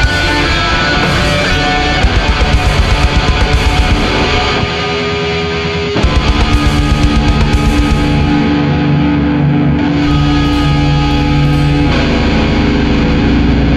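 Death-doom metal with heavily distorted electric guitars. A fast pulsing rhythm comes in about two seconds in and again about six seconds in, with a brief drop in between, and gives way to held low chords near the end.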